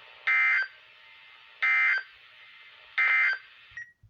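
NOAA Weather Radio broadcasting the three short warbling SAME data bursts of an Emergency Alert System end-of-message code, which closes the weekly test. The bursts come at even spacing over a steady radio hiss, and the hiss cuts off abruptly near the end as the receiver mutes.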